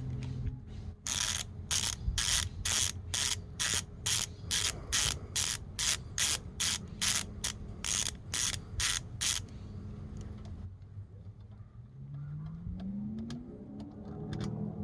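Hand socket ratchet on an extension clicking in short, regular back-and-forth strokes, about two a second, as a bolt on the engine's timing assembly is backed out; the clicking stops about nine seconds in.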